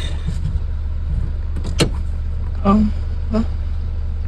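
Car engine running with a steady low drone, the gearbox in neutral so the engine runs without moving the car; a single click a little under two seconds in.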